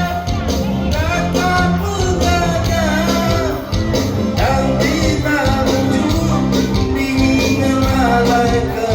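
Music: a song with a singing voice over held bass notes.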